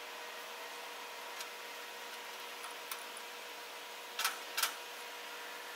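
Steady hiss of a lit Coleman 425 camp stove burner and meat frying in a steel pan on it. About four seconds in, a fork clicks sharply against the pan twice as the meat is prodded.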